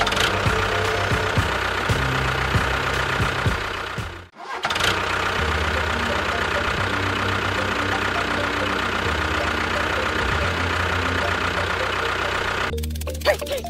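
Tractor engine idling steadily with a low, even chug. The sound breaks off for a moment about four seconds in, then carries on.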